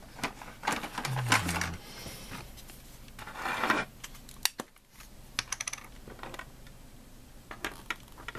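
Small clicks and scrapes of a plastic tube of epoxy putty being handled, its plastic screw cap twisted off and set down on a cutting mat, with two longer scraping stretches about a second in and about three seconds in.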